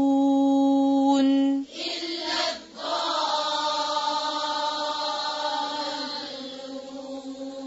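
Quran recitation in tajweed style. A woman's voice holds a long, steady vowel to close a verse and stops about a second and a half in. After a breath, a softer, blurred chanted phrase follows and fades away.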